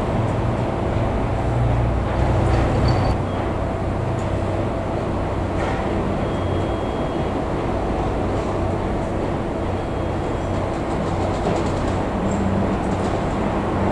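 Depot shunting switcher running steadily as it slowly moves coupled locomotives along a yard track, with a continuous low engine hum and a few light clicks.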